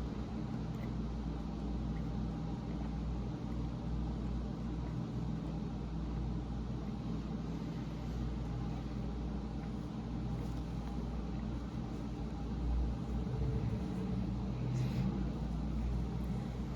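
A steady low rumble with faint chewing of food over it, the chewing a little louder about two-thirds of the way through.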